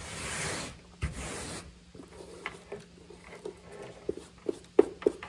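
A hand brushing plastic drill shavings across a workbench in two quick swipes, then light clicks and knocks as a plastic case is handled, the sharpest knock near the end.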